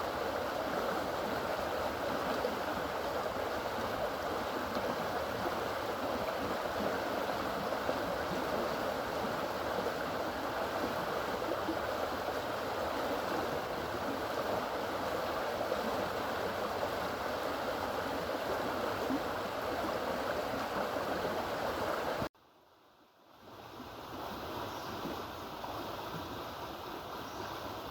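Fast floodwater rushing steadily through an overflowing canal after heavy rain. About 22 seconds in, the rush cuts out suddenly for about a second, then comes back a little quieter.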